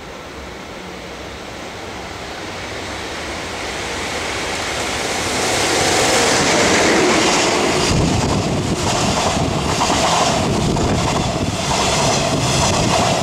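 Twilight Express train hauled by an EF81 electric locomotive approaching and passing close by: the rumble grows louder until the locomotive goes by about six seconds in. Then the coaches' wheels clack over rail joints in a run of repeated clicks.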